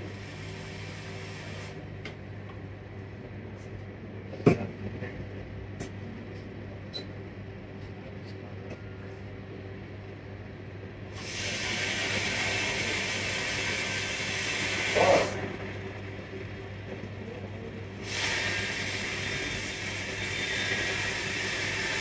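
Hot air rework gun blowing on a laptop motherboard to melt the solder under a small chip, switched on about halfway through, pausing briefly, then blowing again, over a low steady hum. A single sharp click a few seconds in.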